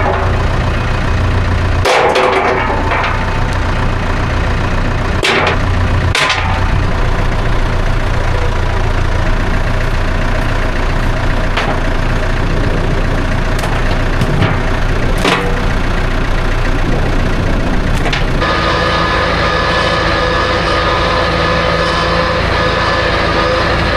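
A vehicle engine running steadily, with a few sharp knocks over it. About three-quarters of the way through the sound changes and several new steady tones come in.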